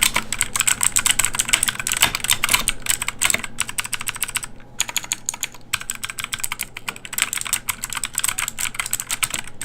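Royal Kludge RK61 mechanical keyboard with clicky Kailh Blue switches being typed on fast: a dense, continuous run of sharp key clicks, broken by two short pauses about halfway through.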